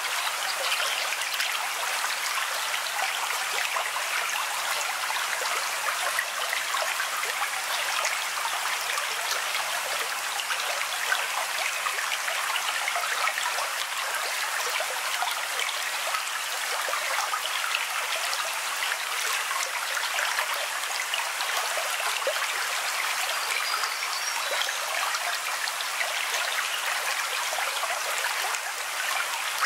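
Running water: a steady, even rush with a fine patter in it.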